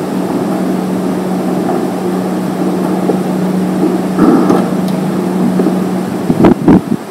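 Steady rushing background noise with a low hum that stops about six seconds in. A door's lever handle is worked about four seconds in and the door swung open, followed by a few sharp knocks near the end, the loudest sounds.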